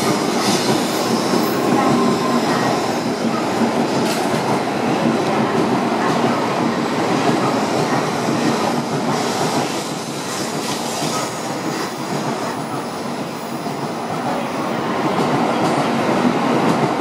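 Tokaido Shinkansen train cars rolling slowly past along the platform: a steady rumble and rattle of wheels on rail, easing a little in the middle and swelling again near the end.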